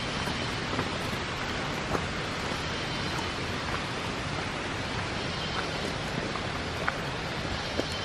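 Steady rushing water noise, even and unbroken, with a few faint short high chirps above it.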